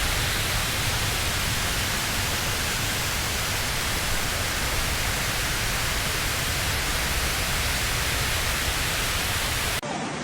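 Steady, loud rushing noise spread evenly from low to very high pitches. Near the end it cuts abruptly to a quieter, duller rush.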